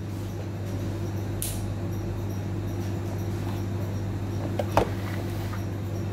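Steady low electrical hum, with a short hiss about a second and a half in and a single knock just before five seconds as the metal lid of an electric roti maker is lowered shut.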